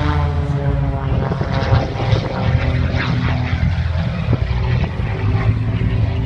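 Propeller airplane engine droning steadily, its pitch sinking slightly in the first second.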